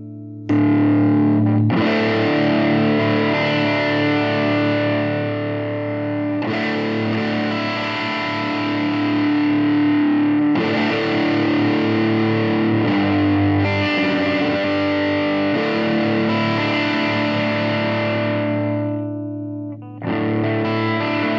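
Electric guitar played through a Joyo Deluxe Cruncher distortion pedal: distorted chords struck and left to ring, a new chord every few seconds, with a brief fade just before the last one.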